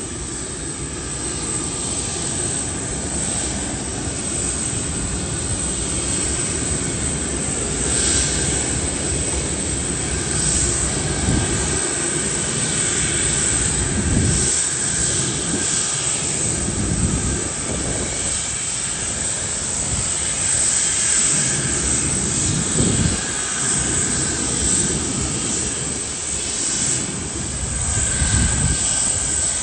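Jet airliner engines running: a continuous rumble with a faint high whine over it.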